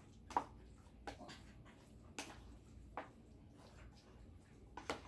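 A hand mixing mayonnaise-dressed macaroni salad in a stainless steel pot: a handful of short, faint wet squelches and clicks, roughly one a second.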